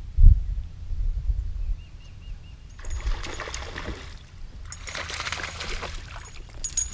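A hooked bass splashing and thrashing at the water's surface while being reeled in, in two bouts about three and five seconds in. A low thump just after the start is the loudest sound, over a steady low rumble.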